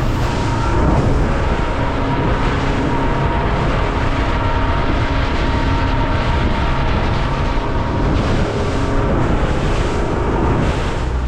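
A fishing boat running under way: a steady engine drone mixed with the rush of wind and water.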